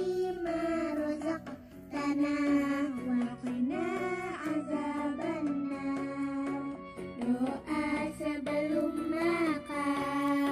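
A child's voice singing with musical backing, played back through a small portable Quran speaker, with long held and sliding notes.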